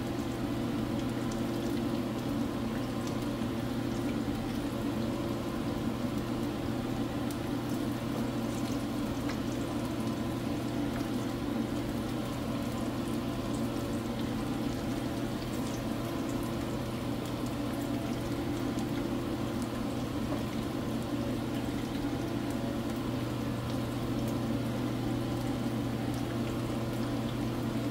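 Spinach-and-onion pakora batter deep-frying in hot oil in a frying pan: a steady sizzling and bubbling with fine crackles from a freshly added batch. A steady low hum runs underneath.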